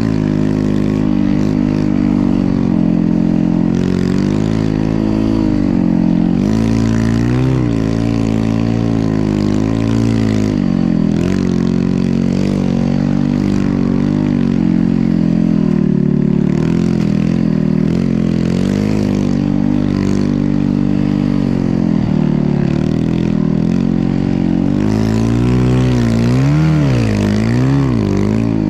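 Snow bike's dirt-bike engine running under load, its pitch rising and falling as the throttle is worked, with quick blips of revving near the end.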